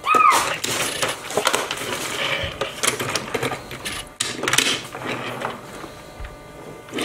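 Die-cast toy cars and plastic toy hauler trucks clicking and clattering as they are handled, set down and pushed along a tabletop, in many small irregular knocks. A brief high chirp rises and falls right at the start.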